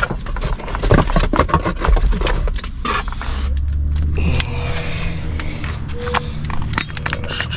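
Badly worn rear wheel hub bearing on a 2009 Toyota Prius droning as the car rolls: a steady low hum sets in about three seconds in, after a few clicks and knocks. The hub is worn badly enough to make the tyres shake.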